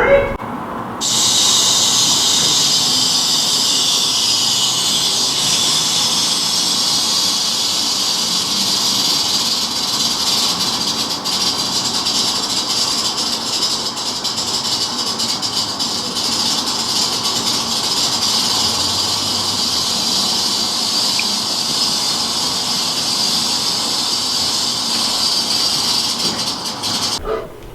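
A recorded wild-animal sound played back as a steady high hiss. It starts suddenly about a second in and cuts off near the end.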